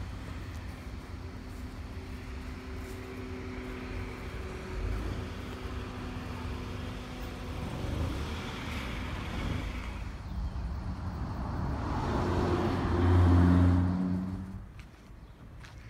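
Car engines and road traffic running steadily, with one vehicle's engine growing loud about twelve seconds in as it passes close, then falling away quickly.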